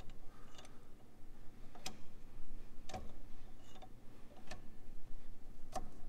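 JKS quick-disconnect sway bar link being spun by hand on its threads to set its length, giving scattered light clicks, about one a second.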